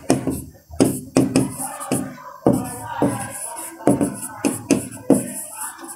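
Stylus tapping and dragging on the face of an interactive smart board as a word is handwritten: a run of irregular sharp taps, about two a second.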